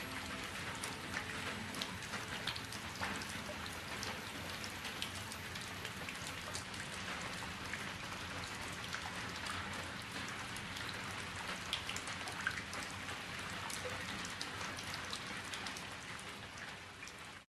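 Steady rain, a dense hiss of many small drop ticks, fading out in the last second.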